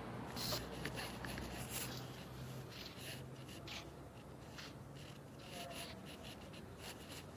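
Faint, irregular scuffs and clicks of footsteps and a phone being handled while walking, over a low steady hum that fades out about three seconds in.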